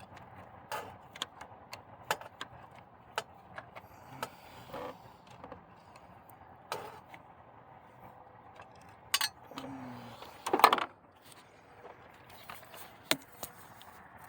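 Irregular metallic clicks and clinks of hand tools and small metal parts being handled while working on an engine, with a louder clatter about ten and a half seconds in, over a faint steady hum.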